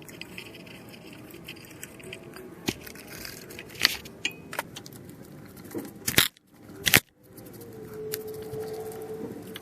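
Light metallic clinks, jangles and scrapes of hand tools and small engine parts being handled, with two loud sharp knocks about a second apart past the middle.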